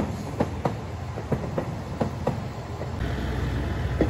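Wheels of a single Chizu Express diesel railcar clacking over rail joints, the clicks coming in quick pairs as each bogie's axles cross, over a low running rumble that grows louder about three seconds in.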